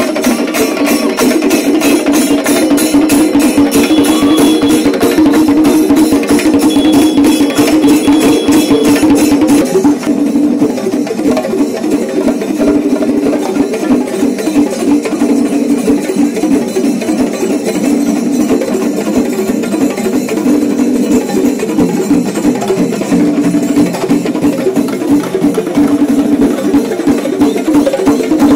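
Kerala temple-festival percussion: drums beaten in a fast, even rhythm over a steady droning tone. The pattern of strokes changes about ten seconds in and becomes less regular.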